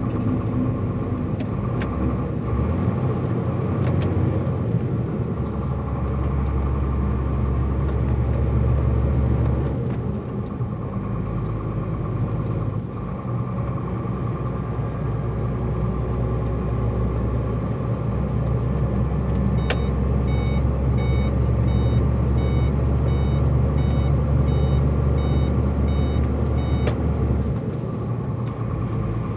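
Tractor-trailer's diesel engine heard from inside the cab, a steady low drone while climbing, easing off briefly twice. In the second half, a short electronic beep repeats in the cab, a little under twice a second, for about seven seconds.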